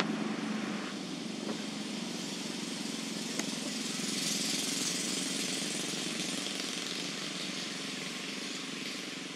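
Steady outdoor background noise: a low droning hum under a high hiss that swells for a couple of seconds around the middle, with a faint click.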